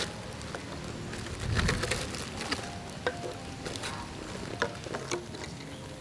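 Light clicks and rustling of thin plastic as disposable plastic cups are pulled from a plastic bag and set down on a wooden table, with a dull thump about a second and a half in.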